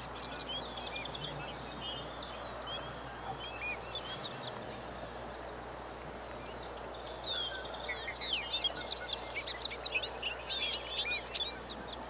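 Savannah sparrow singing, its high buzzy trill loudest from about six and a half to eight and a half seconds in, among many short chirps and calls from other small birds.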